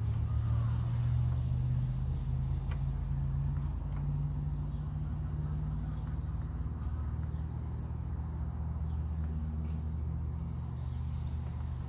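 A steady low mechanical hum from a running motor, with a few faint clicks over it.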